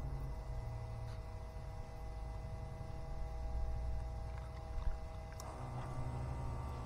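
Water poured into an RC boat's hull through a funnel, then about five and a half seconds in the small electric bilge pump switches on, triggered by the water-level sensor, and runs with a steady hum.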